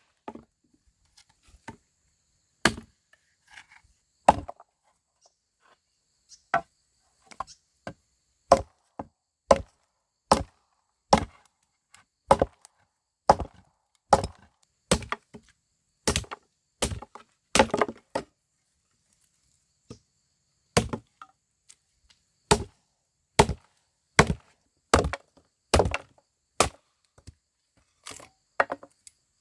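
Wood being chopped with a blade: sharp strikes, roughly one a second, with a brief pause about a third of the way in and a quick flurry of blows past the middle.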